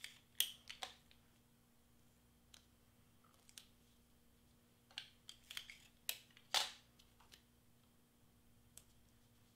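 Clear tape being pulled off, torn and pressed onto cardstock: short sharp rips and crackles, a few about half a second in and a cluster from about five to seven seconds in.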